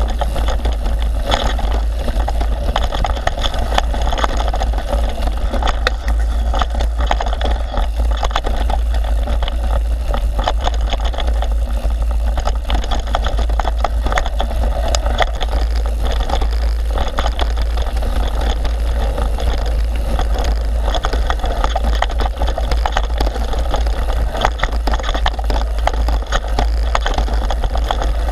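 Mountain bike descending a rough forest singletrack, heard through an action camera: steady wind rumble on the microphone over constant rattling and clicking of the bike and tyres bouncing over the rough trail.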